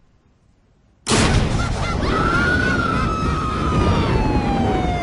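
About a second in, heavy rain cuts in suddenly and loudly, with police sirens wailing over it, one siren's pitch sliding slowly downward.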